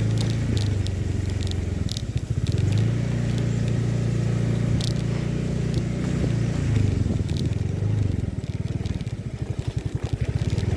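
Small motorcycle engine running while riding a rutted, muddy dirt road, its note dropping to a slow, uneven putter around two seconds in and again from about eight seconds. Scattered clicks and knocks come as it jolts over the rough ground.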